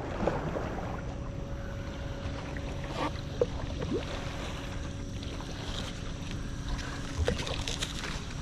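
Water lapping and small splashes, with a faint steady hum underneath.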